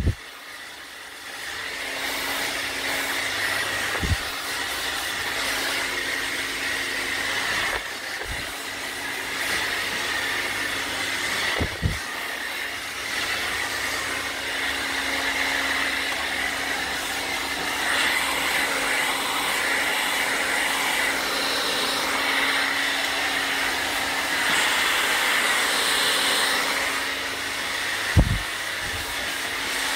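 Hand-held hair dryer blowing steadily while hair is dried over a round brush, building up to full strength in the first couple of seconds. A few sharp knocks from handling stand out, the loudest near the end.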